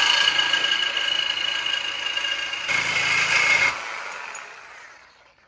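A corded electric metal-cutting power tool runs with a high motor whine while cutting through an old metal stake. The tone changes about two and a half seconds in, then it is switched off and the motor winds down over a second or so.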